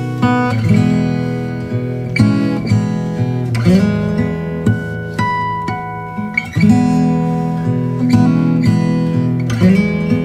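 Background instrumental music: an acoustic guitar tune of plucked notes and chords, each note striking sharply and ringing out.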